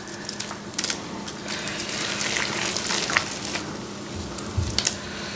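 Minced garlic being added from a porcelain bowl into a stainless-steel basin of wet red-pepper kimchi seasoning and worked through it. This makes a wet, crackly mixing sound, louder in the middle, with a few light clicks, over a faint steady hum.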